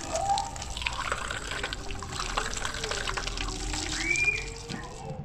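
Water running from a wall tap and splashing over a glass held under the stream as it is rinsed, with small clicks of glass and water throughout.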